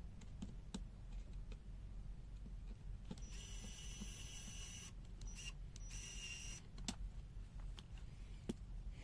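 Small clicks and taps while a handheld digital multimeter's case is being taken apart, with two short stretches of a high, steady mechanical whir about three seconds in and again about six seconds in.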